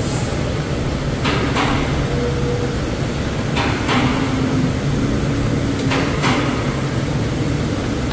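Sharp clacks of the plastic radiator fan shroud and motor being handled and worked loose, in three pairs about two seconds apart, over a steady mechanical hum.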